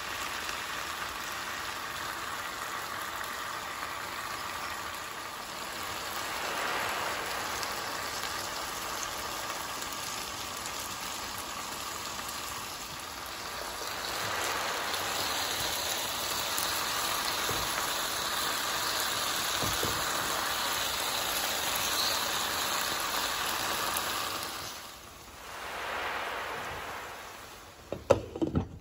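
Okra, onions and tomatoes frying in oil in an open pan, a steady sizzle. Near the end a glass lid clinks down onto the pan a few times.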